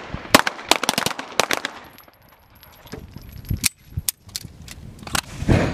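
Pistol shots on a firing range, a rapid irregular string of sharp cracks in the first two seconds, a short lull, then several more shots.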